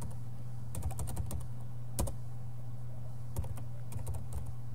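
Computer keyboard keys clicking as a short command is typed, in irregular clusters of keystrokes, over a steady low hum.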